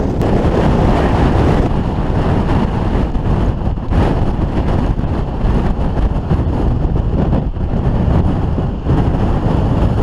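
Storm-force wind buffeting the microphone, a loud, steady low rumble that flutters with the gusts, over heavy Atlantic storm surf breaking on the rocks below.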